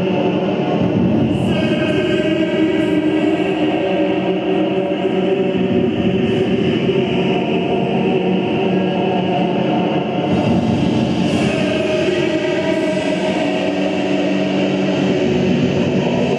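Live noise music from electronic gear: a loud, dense drone of many layered sustained tones over a noisy haze. The upper tones shift about a second and a half in and again around ten seconds in.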